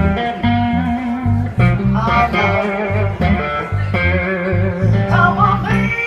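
Live blues played on amplified cigar box guitars, a steady bass-note groove under guitar lines, with a woman's voice singing in places.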